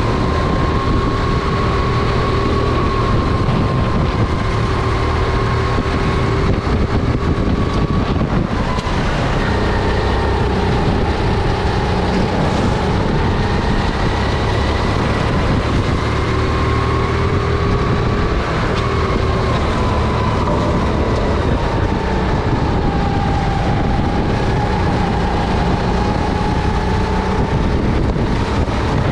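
Honda GX270 single-cylinder four-stroke engine of a SODI RT10 rental kart running at speed, its pitch rising and falling gently with the throttle, with a dip about eight seconds in.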